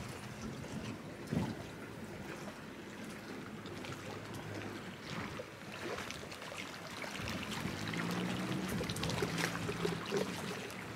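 Small waves lapping and trickling at the water's edge, with scattered light splashes. A low steady hum joins in for a couple of seconds near the end.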